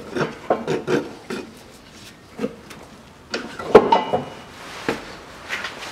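Metal exhaust parts knocking and scraping as the rear muffler of a Chevrolet Lanos is worked loose at its pipe joint by hand. Scattered short knocks and rubbing, with a cluster of sharper clanks a little before four seconds, the loudest ringing briefly.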